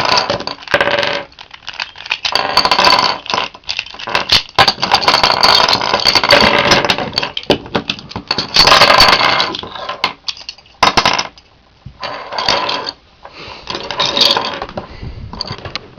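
Plastic Rubik's Cube pieces clicking and clattering as the cube is pulled apart piece by piece: many quick, irregular clicks with short pauses.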